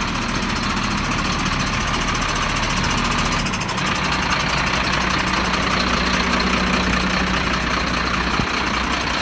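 Flatbed recovery truck's engine idling steadily, its low hum growing stronger a little over three seconds in.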